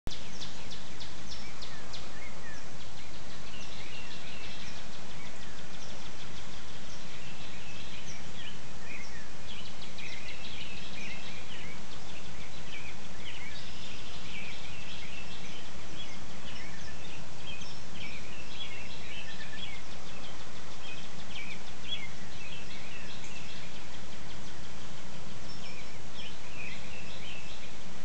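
Dawn chorus: many songbirds singing at once in quick, overlapping chirps and warbled phrases, over a steady low hum.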